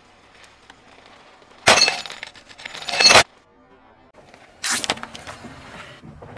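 A sheet of glass cracking and breaking under a car tyre: a loud crunching, crackling stretch with a ringing edge, starting a little under two seconds in and cutting off abruptly after about a second and a half. Quieter noise follows in the last part.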